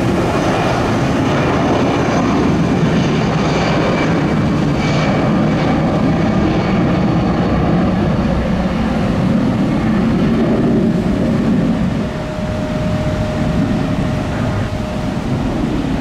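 Delta Boeing 757's twin jet engines at takeoff power: a steady roar with a high fan whine, as it accelerates down a wet runway and lifts off.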